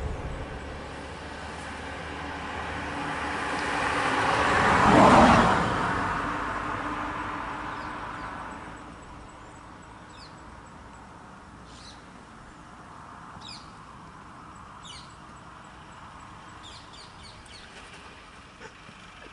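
A Honda sedan drives past, its sound swelling to a peak about five seconds in and then fading away. Afterwards small birds chirp in short, high calls.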